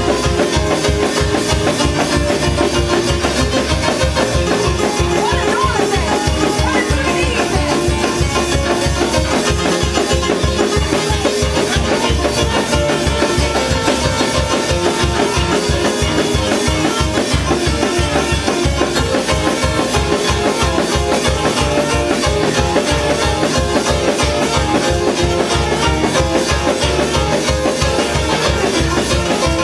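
Up-tempo praise-break music playing loudly without a break, driven by a fast, steady drumbeat.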